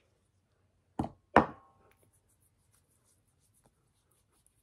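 Two short, sharp knocks about half a second apart, about a second in. The second is louder and has a brief ring after it.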